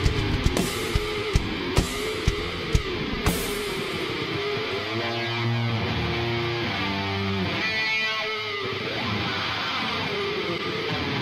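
Live heavy rock band: drum-kit hits and cymbal crashes for the first few seconds, then the drums drop out and an electric guitar plays held notes alone.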